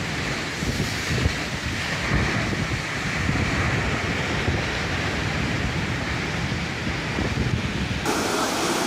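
Heavy surf breaking against and over a concrete seawall, a steady wash of crashing water with strong wind buffeting the microphone as a low rumble. Near the end the sound changes abruptly to a clearer rush of water.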